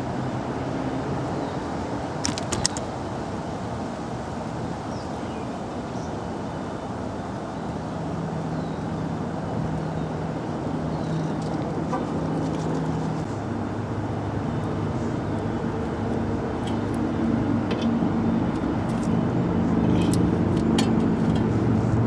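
A motor vehicle running nearby with a steady low droning hum. The pitch shifts about halfway through and the hum grows a little louder toward the end. There are a few light metallic clicks about two seconds in.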